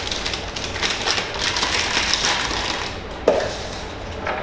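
Handling noise from blind-box packaging and a small vinyl toy figure: continuous crinkling with scattered light clicks, and one sharper knock about three seconds in.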